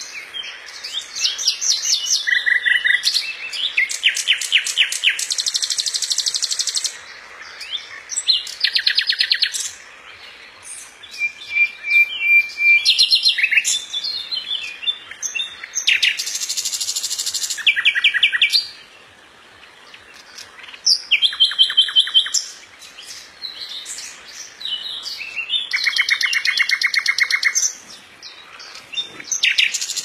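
Common nightingale singing: a string of varied phrases, many built of fast repeated notes, separated by short pauses.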